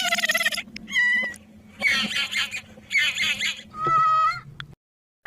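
A reconstructed dinosaur call: five short, high-pitched animal cries in a row, some wavering and some held on one note. It cuts off abruptly about half a second before the end.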